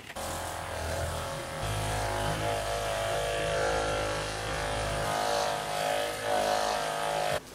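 Hyperice percussion massage gun running on the lower back, a steady motor buzz. A deeper low sound joins from about a second and a half in to about five seconds in, and the buzz cuts off near the end.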